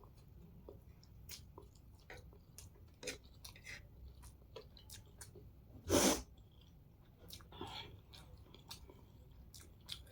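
Close-miked eating sounds of someone chewing hakka noodles: scattered wet mouth clicks throughout, with one short, loud burst about six seconds in.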